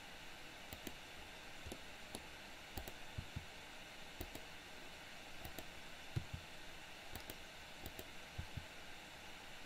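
Scattered short clicks of a computer mouse and keyboard keys, some in quick pairs, over a steady faint hiss.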